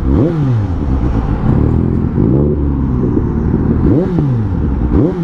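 A vehicle engine blipped at the throttle several times, each rev a quick rise in pitch that falls back to idle.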